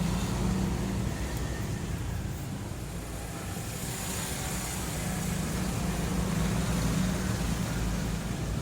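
A steady low motor rumble that swells slightly near the start and again about six to seven seconds in.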